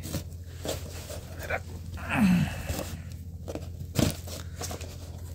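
Fingers picking at and peeling packing tape off a cardboard mailing box: scattered crackling and scraping, with a louder click about four seconds in.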